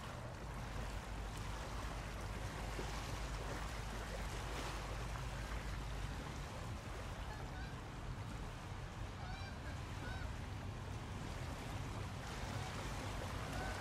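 Steady rush of river water with a low rumble underneath, and a few faint short chirps in the middle.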